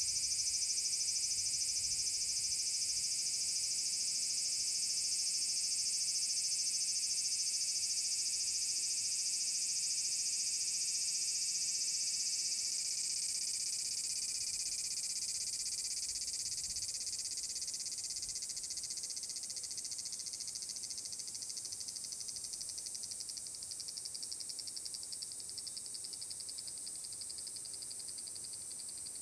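Large brown cicada (aburazemi) giving its long, steady sizzling drone, a dense high buzz. About two-thirds of the way through, the song fades away gradually.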